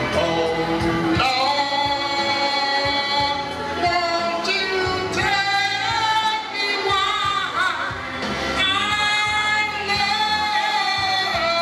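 A man singing long held notes into a handheld microphone over backing music, amplified through a PA; three long drawn-out phrases, each held for a couple of seconds.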